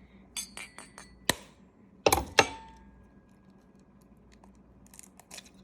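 An egg being tapped against the rim of a bowl: a few light ringing clinks, then two sharp knocks about two seconds in, the bowl ringing briefly after them. A few faint ticks follow near the end.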